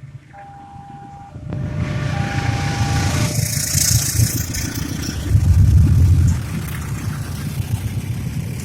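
A level-crossing warning signal sounds a steady electronic tone in on-off pulses. A train then rolls through the crossing with a loud, rising rumble of wheels on rails, loudest past the middle, and the rumble carries on as the train keeps passing.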